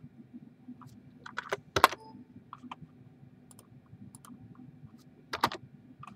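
Computer keyboard keys and mouse buttons clicking in scattered single presses while a file name is typed. The loudest clicks come in a quick cluster about two seconds in and again near the end.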